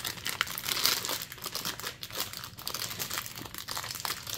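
Clear plastic shrink wrap crinkling and tearing as it is peeled off a cardboard trading-card box, a dense run of quick crackles.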